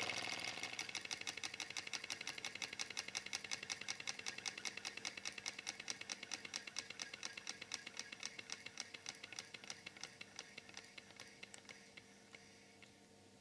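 Wiggers Stiwi2 model Stirling engine running with a fast, even mechanical ticking. The ticks grow fainter and further apart as the engine slows and runs down to a stop near the end.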